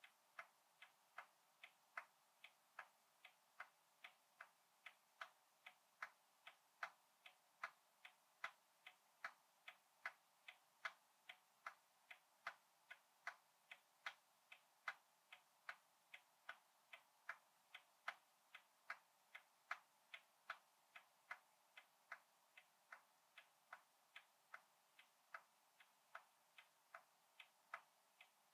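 Faint, steady ticking of a hundred-year-old clock, about two and a half ticks a second, evenly spaced.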